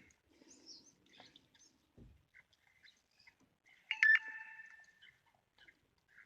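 Birds chirping in short scattered calls, with one louder call about four seconds in that holds a steady note for under a second.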